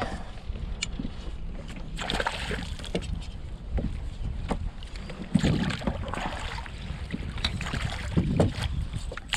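Knocks and handling noise in a kayak: scattered sharp clicks, with heavier thumps about five and eight seconds in, over a steady low rumble of wind on the microphone.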